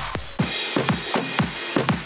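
Electronic dance music with a steady kick drum, about four beats a second, and a high cymbal hiss.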